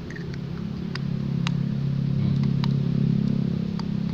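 A low engine hum that grows louder and then eases off, with a few sharp clicks from the small plastic flasher relay being pushed back together.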